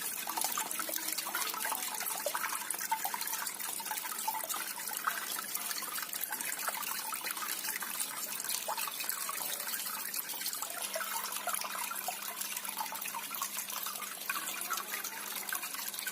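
Water trickling and splashing steadily down a small homemade cement waterfall feature.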